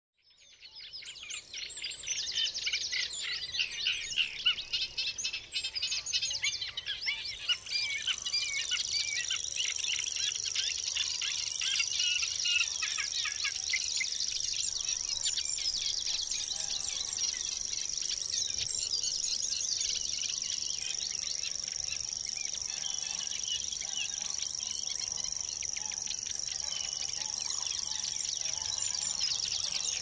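Outdoor natural soundscape fading in: many small birds chirping and singing over one another. About seven seconds in they are joined by a continuous high-pitched trill of crickets, which runs on steadily under the birdsong.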